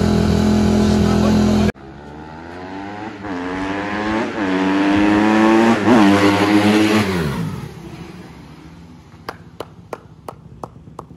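Honda CRF150R dirt bike's single-cylinder four-stroke engine running steadily, cut off abruptly; then revving up, the pitch climbing and dropping back several times as it goes up through the gears, before falling and fading away. Near the end, a few sharp clicks.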